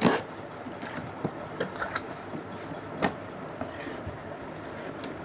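Cardboard carton of a sewing machine being handled and its top flaps opened by hand: a few sharp knocks and scrapes of cardboard, the loudest at the very start and another about three seconds in.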